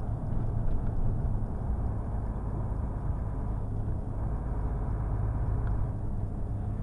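Heavy truck's diesel engine and road noise heard from inside the cab while driving: a steady, low, even sound.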